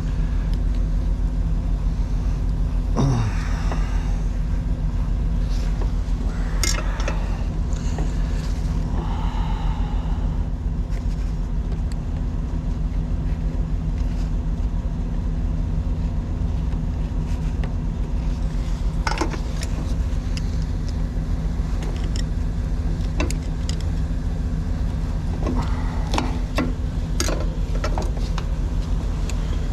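Truck engine idling with a steady low drone, with scattered short clicks and scrapes from tape being cut and peeled off a rubber air hose near its metal fitting.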